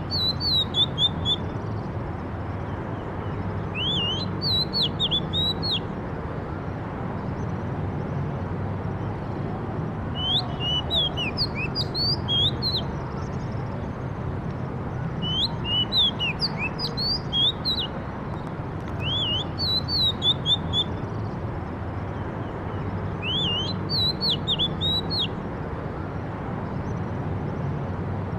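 A songbird singing, repeating a short phrase of quick, high, rising notes about every four to five seconds, over a steady low background hum.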